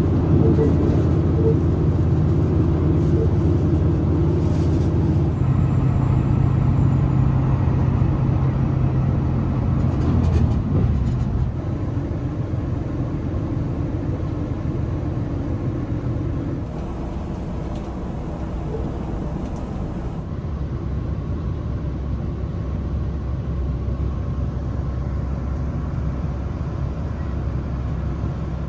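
Passenger train running at speed, heard from inside the carriage: a steady deep rumble with a hum, a little quieter after about eleven seconds.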